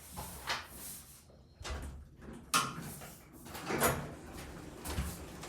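Elevator doors sliding and knocking: a few short sliding swishes, one starting sharply about halfway through, with low thumps in between.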